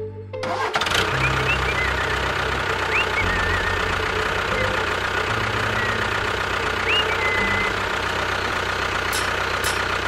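Tractor engine sound starting about half a second in and then running steadily, with a few short high chirps over it.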